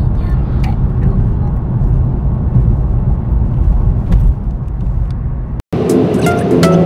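Steady low rumble of road and engine noise inside a moving car. It cuts off suddenly about five and a half seconds in, and music starts.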